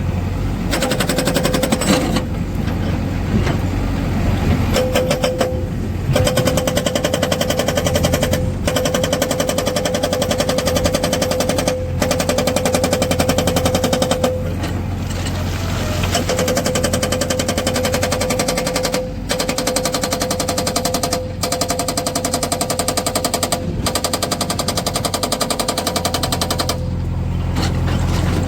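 Hydraulic rock breaker on a Tata Shinarai backhoe loader hammering stone in rapid strokes, in runs of a few seconds broken by short pauses, with the loader's diesel engine running underneath.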